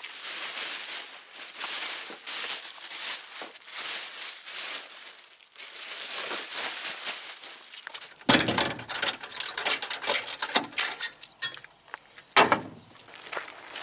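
Plastic packaging film rustling and crinkling in repeated strokes as it is handled around a car bumper. About eight seconds in it gives way to a few seconds of dense clicking, crackling and knocking, with one louder knock near the end.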